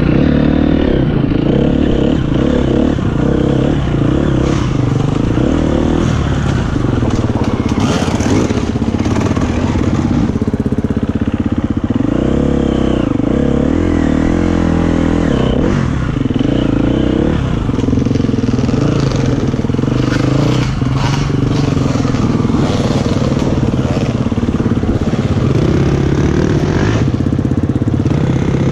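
Enduro dirt bike engine, heard close up from on board, revving up and down as it is ridden along a rough trail, with a few sharp knocks and rattles from the bike over the ground.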